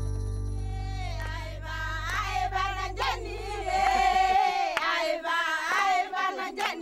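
The last chord of an acoustic guitar piece rings on and stops short about four seconds in. From about a second in, high women's voices start singing, with a wavering pitch.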